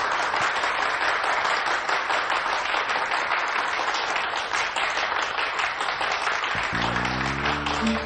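A crowd of guests applauding. About six and a half seconds in, soft guitar music starts under the applause.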